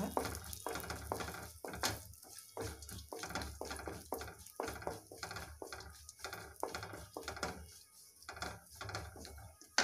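Wooden spatula scraping and stirring against the bottom of a brass kadai as sliced almonds and cashews fry lightly in ghee, in quick strokes about three a second that thin out near the end.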